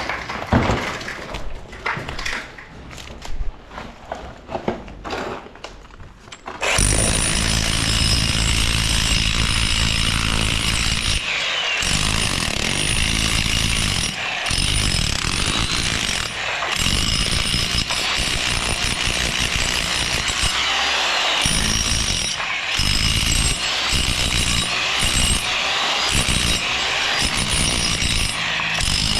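Scattered knocks at first. Then, about six or seven seconds in, a power tool starts abruptly and runs loudly and steadily, briefly easing off several times.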